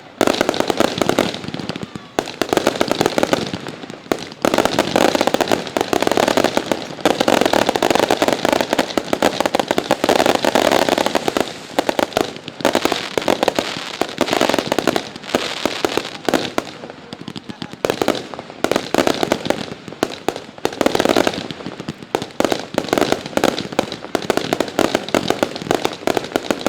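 Consumer fireworks firing in a dense, unbroken barrage of rapid bangs and crackles, densest about a third of the way in and again near the end.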